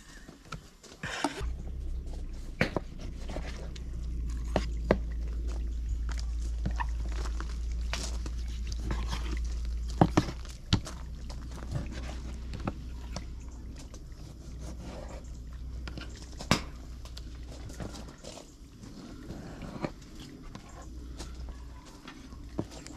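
Scattered sharp knocks and clicks over a steady low rumble.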